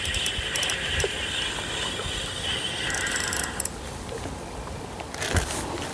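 Spinning reel cranked quickly with a fish on the line, a steady whirring rattle that stops about three and a half seconds in. A single short knock follows near the end.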